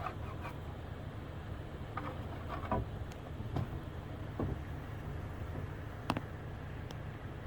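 Scattered light clicks and knocks of locksmith tools being worked at a pickup truck's door gap, the sharpest about six seconds in, over a steady low hum.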